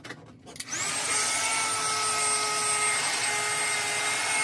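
Handheld hair dryer switched on about a second in after a few handling clicks, then running steadily: a loud rush of air with a high-pitched motor whine.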